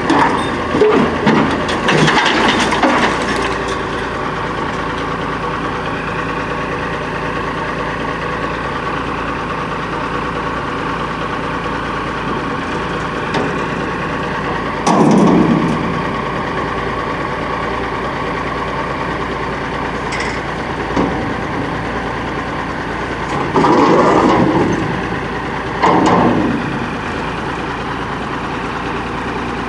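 Diesel engine of a 1986 Peterbilt 310 front-load garbage truck with an Amrep Octo body running steadily while its lift arms dump a dumpster over the cab and set it back down. Clanks and knocks come in the first few seconds, and short louder bursts come around the middle and twice near the end.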